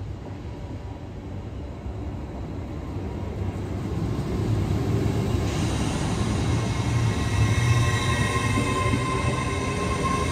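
LNER Azuma (Hitachi Class 800/801) train running past close by along the platform. Its rail and running noise grows over the first few seconds, and from about six seconds in steady high whining tones join it as the carriages go by.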